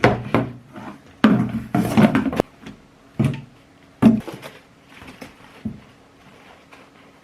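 Unboxing handling noise: a run of irregular rustles, knocks and clatters as packaging and parts are handled, busiest in the first few seconds and quieter after. A faint steady hum lies underneath.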